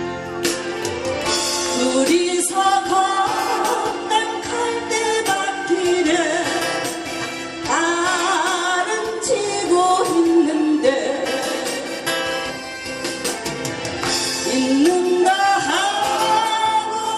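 A woman singing a Korean ballad live, with guitar accompaniment, her voice sliding and wavering between held notes.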